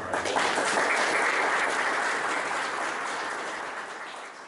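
Congregation applauding: many hands clapping, loudest about a second in, then slowly dying away.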